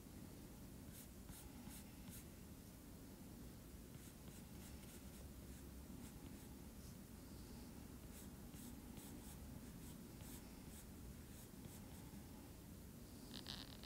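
Faint scratching and tapping of a stylus on a tablet's glass screen, in scattered clusters of light ticks, over a low steady room hum.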